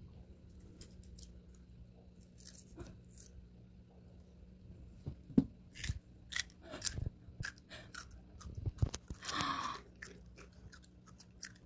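A child biting and chewing a crisp cucumber close to the microphone, with wet crunches that come thicker in the second half.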